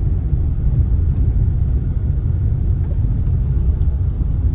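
Steady low rumble of a moving vehicle: engine and road noise at an even pace.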